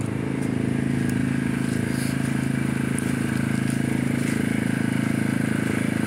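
Small lawn mower engine running steadily at constant speed, a little louder from about a second in.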